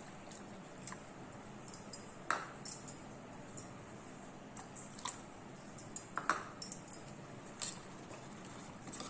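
Steel spoon clinking against the side of a stainless steel pot as thin ragi dosa batter is stirred, a handful of separate clinks a second or so apart.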